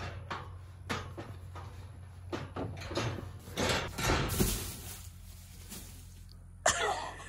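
Metal pipe gate panel knocking and rattling as a person climbs it, then a plastic tarp crackling and hay bales crunching as they leap into the tarp and drop into the hay, most of it about three to four and a half seconds in. A sudden louder rustle near the end.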